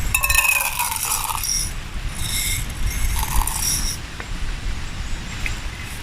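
Popcorn kernels rattling against the inside of a titanium cup, in two bouts of clinking with a metallic ring, the second ending about four seconds in.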